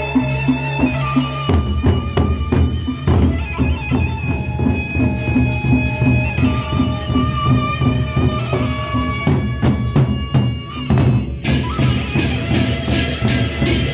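Gendang beleq ensemble playing: large Sasak double-headed drums beaten with sticks in a fast, even rhythm under a melody of long held notes. About eleven seconds in, loud crashing cymbals join in.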